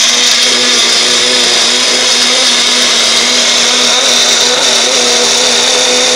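Personal blender with its cup pressed onto the motor base, running steadily at one pitch as it blends frozen berries, protein powder and water into a smoothie.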